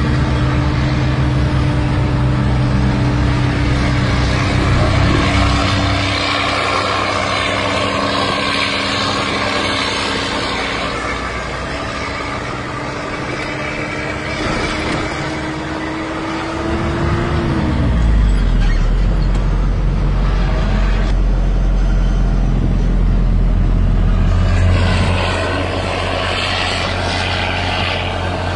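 Heavy diesel dump truck engine running under load, heard from inside the cab. A steady whining tone drops in pitch about 17 seconds in, and a deeper low rumble takes over from there.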